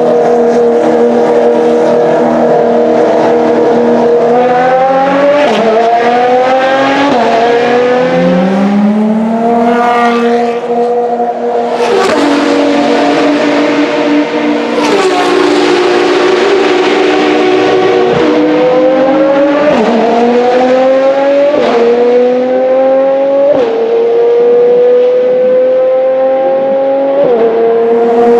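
Ferrari FXX-K race cars' 6.3-litre V12 engines at high revs, their pitch held steady, then climbing and falling sharply at each upshift, several times over. Twice near the middle a car's sound swells loudly and briefly as it passes.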